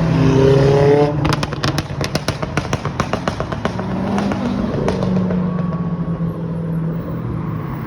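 A sports car's engine revving up as it accelerates past, then a rapid, irregular string of exhaust pops and crackles for about four seconds, after which engines run on steadily.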